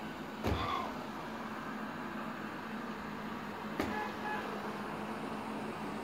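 Robot vacuum cleaner running with a steady hum, with two sharp knocks, about half a second in and again near four seconds in.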